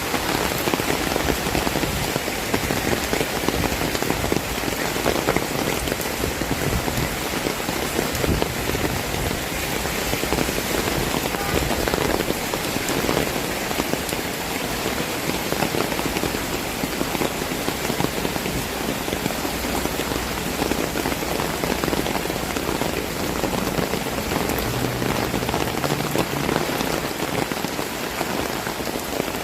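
Heavy rain falling steadily and pattering on surfaces, a dense even hiss.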